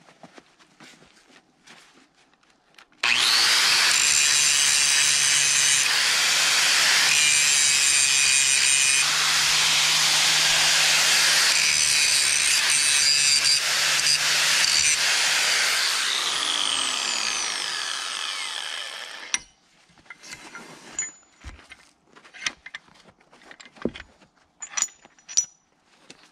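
Angle grinder switched on about three seconds in, its disc grinding the edge of a steel weld-on chain hook held in a bench vise to clean off oil and coating before welding. Near the end of the grinding the motor's whine falls as it winds down, and the noise stops about nineteen seconds in. A few light clicks and knocks follow as the grinder is set down.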